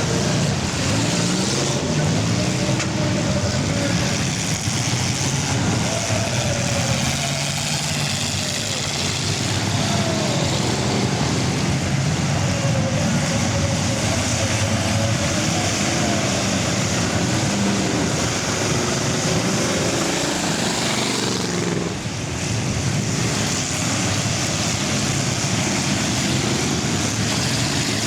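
Several full-size car engines racing, their pitch rising and falling over one another as they accelerate and back off, with a brief drop in level about two-thirds of the way through.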